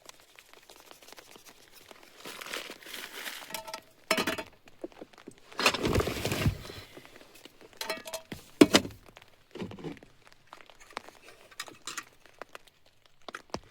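Handling noises as gram flour is brought out for pakora batter: plastic packaging crinkling and small clinks of utensils, with a louder rustle about six seconds in and scattered sharp knocks.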